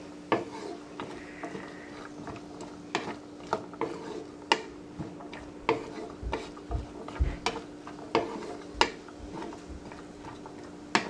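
A spatula stirring diced vegetables in a nonstick frying pan, knocking and scraping against the pan about once a second at an irregular pace.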